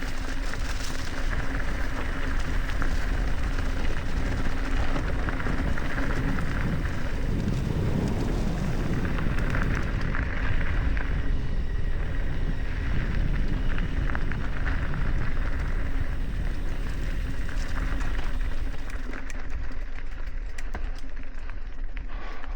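Wind rushing over the action camera's microphone, with bicycle tyres rolling and crackling over a dirt and gravel trail as the mountain bike rides at speed.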